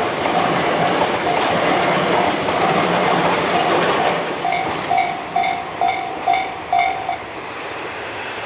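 Japanese level-crossing alarm ringing its 'kan kan' tone about twice a second while a Tobu Nikko Line train passes, wheels clicking over the rail joints. The train noise fades and the alarm stops about seven seconds in.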